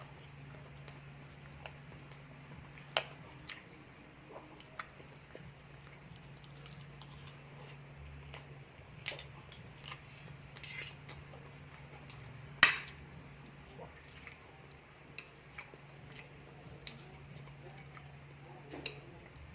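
A person eating: scattered clicks and taps of cutlery on dishes and chewing, with one sharp clack about twelve and a half seconds in, over a low steady hum.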